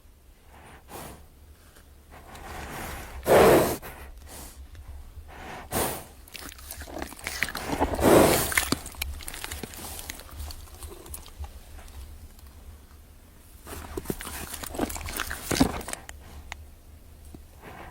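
Plateosaurus creature sound effect: a series of rough, noisy bursts without clear pitch, each lasting from a fraction of a second to about a second, the loudest about three and eight seconds in and another cluster near the end.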